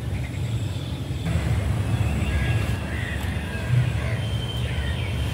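Steady low rumble of outdoor background noise, with a few faint high chirps in the second half.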